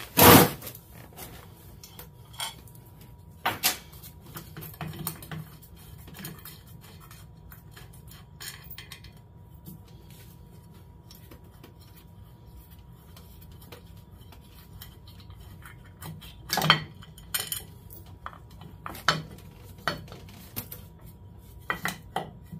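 Scattered metallic clinks and clanks of an engine mounting plate, its bolts and the drive chain being handled and shifted by hand. A loud clank comes right at the start, another a few seconds in, a cluster about two-thirds of the way through and a few more near the end, with quiet stretches between.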